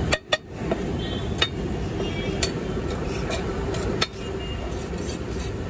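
Perforated metal spatula stirring and scraping beef fry on a large flat iron tawa, striking the griddle with sharp clinks: two quick ones at the start, then about one a second, over steady background noise.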